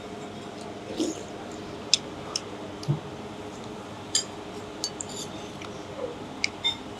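Spoon and chopsticks clinking against a bowl while eating noodles: scattered sharp clicks every second or so, over a steady background hum.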